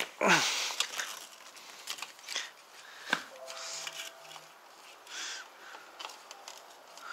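Quiet handling sounds from gloved hands pulling the hub-motor cable through an e-bike frame: scattered light clicks and rustles of wire and plastic. A short murmur of voice comes right at the start.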